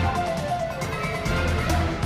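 Background music with a steady bass beat and a melody over it.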